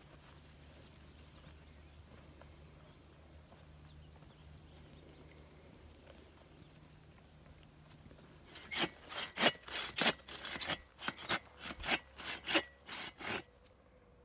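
Hand saw cutting through a dry, weathered log: a quick series of back-and-forth strokes, about three a second, starting about eight and a half seconds in and stopping just before the end. Before that only a faint steady background.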